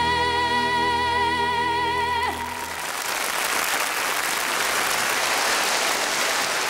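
A woman singer holds a long final note with vibrato over the band's closing chord, ending with a short falling slide a little over two seconds in. The audience then applauds steadily.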